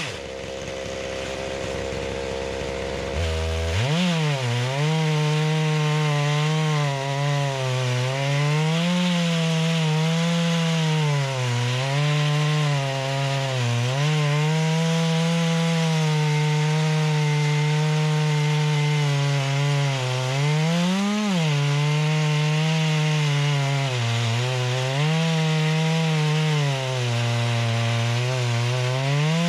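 Holzfforma G660 two-stroke chainsaw (a Stihl MS660 clone) at full throttle, ripping a pine log lengthwise in a chainsaw mill. Its engine note sags under load and picks back up every few seconds as the cut goes on, with a brief rise in revs about two-thirds of the way through. The owner says the saw is running good but not at peak and needs a carburetor adjustment.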